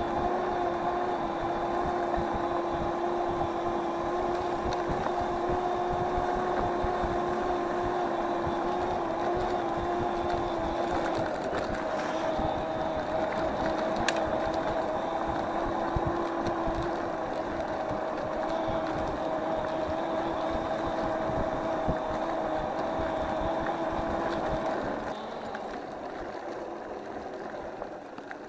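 Electric scooter motor whining at a steady pitch while riding, over rumbling tyre and wind noise. Near the end the whine stops and the noise drops as the scooter slows.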